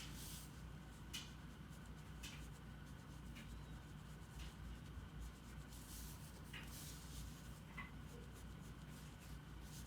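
Faint scratching strokes of a drawing tool on paper, short strokes about once a second with a couple of longer sweeps a little past the middle, over a steady low room hum.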